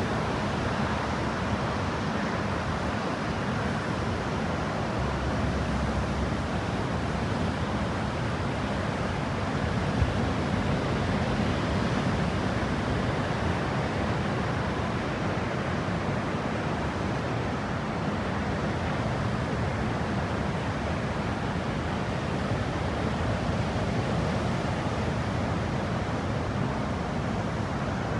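Ocean surf breaking, a steady wash of noise with no pauses.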